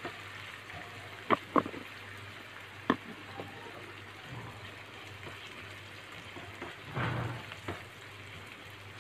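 Sliced onions sizzling steadily in hot oil in a frying pan as a wooden spatula stirs them, with a few sharp clicks of the spatula against the pan in the first few seconds.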